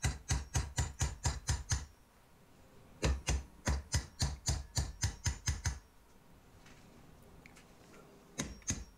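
Claw hammer beating a steel box-section tube held in a bench vise, forcing it around a tight bend: quick blows about four a second with a slight metallic ring. The blows come in a short run at the start and a longer run from about three seconds in, then a few more near the end.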